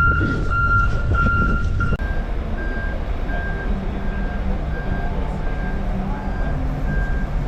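Heavy vehicles' reversing alarms beeping over a low engine rumble, about two beeps a second. About two seconds in the sound changes abruptly to a softer, higher-pitched beeper at a slightly slower pace.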